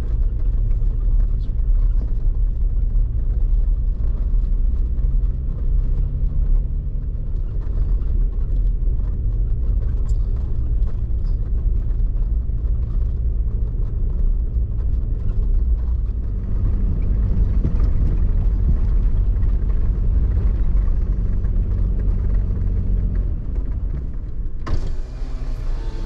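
Strong gusty wind buffeting the microphone: a loud, continuous low rumble.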